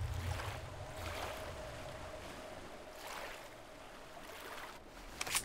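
A rowboat's oars dipping and pulling through river water, a stroke every second or two over the steady wash of the water, with a sharper splash near the end. A faint held tone sits underneath for most of it.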